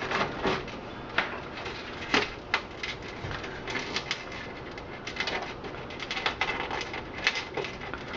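Irregular clicks, taps and rustles of cables and plastic connectors being handled and pulled through a desktop PC case.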